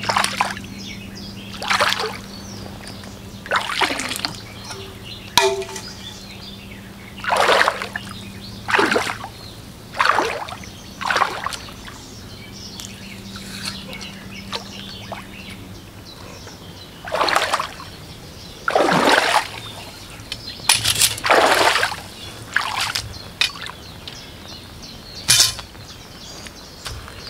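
Water splashing and sloshing in about a dozen short, irregular bursts, with trickling between them, as the caught bream are handled in the water. A low steady hum sits underneath and stops about sixteen seconds in.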